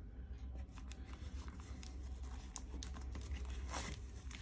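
Faint rustling and small scattered ticks of a fabric ribbon being untied and slid off a small wrapped box.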